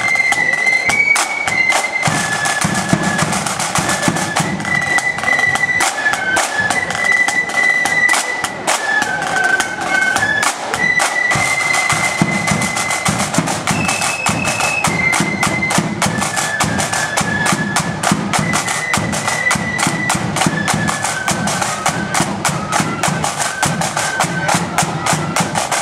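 Marching flute band playing a tune: many flutes in unison carry a high, stepping melody over rapid snare drumming and the beat of a bass drum.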